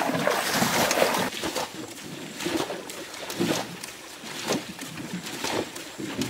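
Muddy water splashing and sloshing as it is scooped up and thrown out with basins and buckets, loudest in the first second, then scattered smaller splashes.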